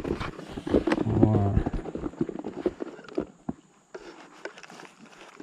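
Close handling noises from an angler working on a bank of dry leaves and twigs: a quick run of clicks, knocks and rustles, busiest in the first two seconds and thinning out after. A short low mutter comes about a second in.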